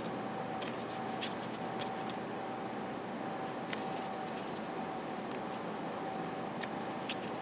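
Trading cards being leafed through by hand: light, irregular clicks and rubs of card stock over a steady background hiss and a faint, steady hum.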